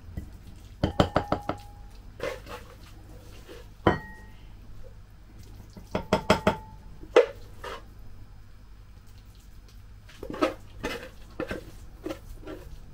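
Metal spoon knocking and scraping against a cooking pot and ceramic bowls as rice is dished out. Quick runs of clinks come about a second in, midway and again near the end, with a single sharp knock about four seconds in, some of them ringing briefly.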